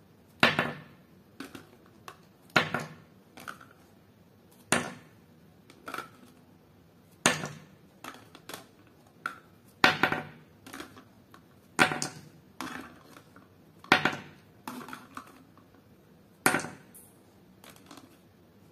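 Plastic tongs picking plastic balls out of a hard plastic box: a sharp clack about every two seconds, each followed by a few softer clicks and taps.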